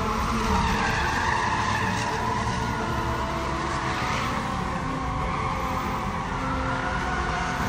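Several stunt cars drifting: tyres squealing in a continuous screech that wavers up and down in pitch, over the rumble of their engines.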